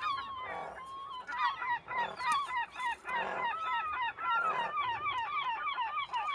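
Razorbill chick calling from its nest under the boulders: a rapid series of short, falling peeps, about three to four a second, with a few longer held notes. Rougher, rasping calls come in between the peeps.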